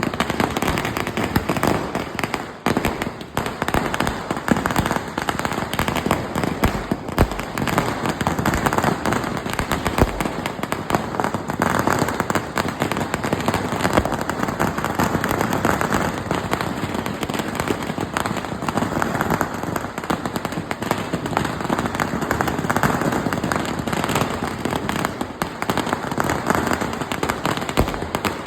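Cock Brand firecrackers going off in a rapid, unbroken string of sharp bangs.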